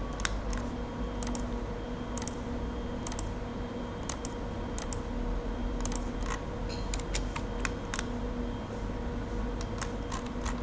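Irregular clicks of a computer keyboard and mouse as a SketchUp model is worked on, over a steady low hum.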